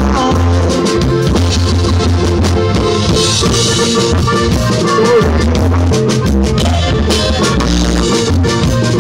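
Live band playing a corrido, amplified through PA speakers: drum kit with electric and acoustic guitars, at a steady beat.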